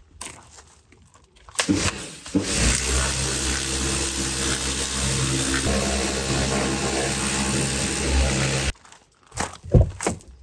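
A power tool's motor starts about a second and a half in, runs steadily for about seven seconds and cuts off abruptly, with a few knocks of metal work before and after.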